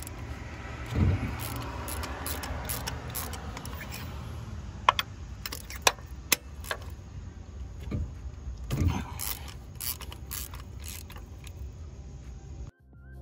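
3/8-inch ratchet clicking and metal tool clatter as spark plugs are unscrewed from a Toyota 2ZZ-GE engine with a spark plug socket on a long extension. Irregular sharp clicks and knocks, cut off suddenly just before the end.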